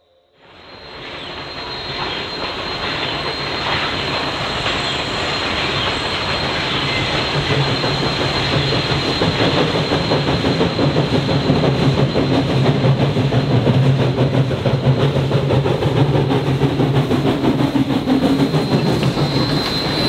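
Everett Railroad No. 11 steam locomotive and train running past, fading in about half a second in and growing louder as it nears. Wheels clack on the rails, with a thin, steady high squeal from the wheels on the curve.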